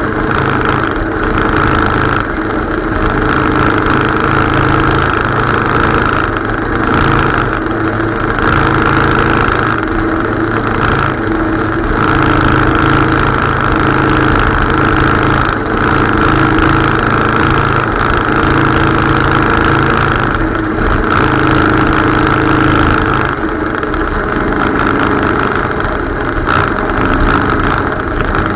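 Motorcycle engine running steadily while riding along a road, its pitch shifting a little with speed, over a constant hiss of wind and road noise.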